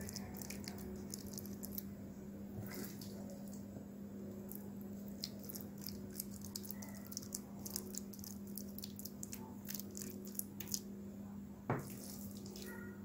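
Spoon spreading thick vegetable batter in a metal baking tray: soft wet squishing with scattered light clicks of the spoon, and one louder knock near the end. A steady low hum runs underneath.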